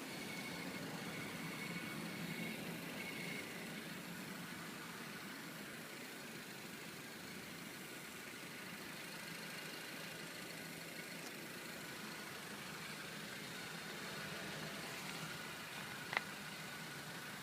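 Ninth-generation Honda Civic engine idling, with an intermittent high whistle, like an insect's chirp, coming and going in short broken dashes over the first few seconds and again faintly near the end. Honda attributes the whistle to the EGR valve and calls it normal; the owner suspected the alternator, but a replacement alternator did not cure it. A single sharp click sounds near the end.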